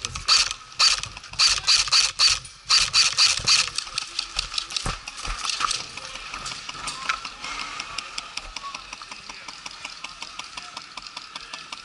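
Airsoft guns firing: a run of loud, sharp shots in roughly the first four seconds, then a quicker, fainter, steady clatter of shots.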